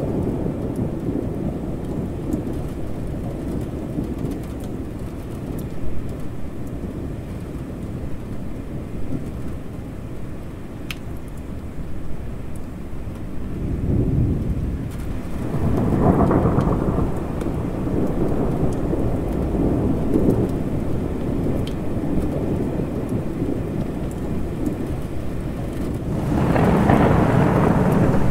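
A thunderstorm: steady rain with continuous low thunder rumbling underneath. The rumble swells about halfway through and again, loudest, near the end.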